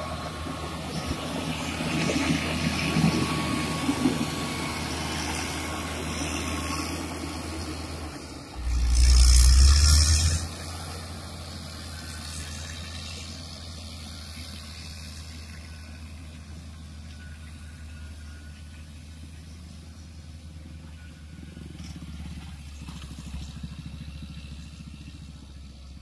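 Caterpillar 120K2 motor grader's diesel engine running steadily under load as it grades the road shoulder, fading as the machine moves away. About nine seconds in, a loud burst of rushing noise lasts a second or so.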